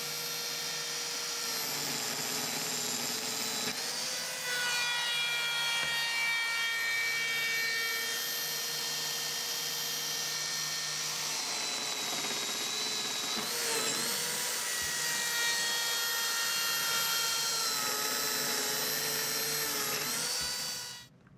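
Electric power tool motor running steadily with a high whine. Its pitch dips briefly a few times, as under load, and the motor stops near the end.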